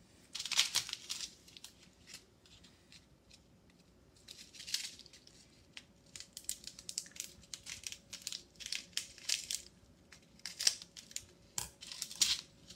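Small plastic packets of crystal beads crinkling and rustling as they are handled, with scissors snipping a packet open, in irregular short bursts.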